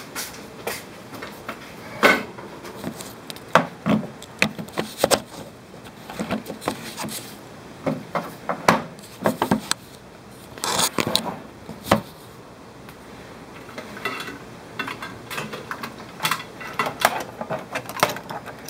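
Irregular clicks, knocks and rubbing of a power cord and its plastic plug being handled against hard plastic cases, with a longer scraping rub about eleven seconds in.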